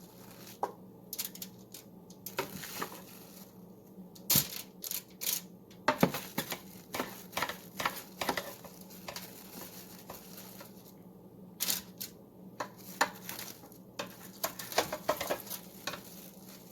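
A spoon clinking and scraping against a pan as meatballs are spooned out and set down for baking: irregular clicks and knocks, over a low steady hum.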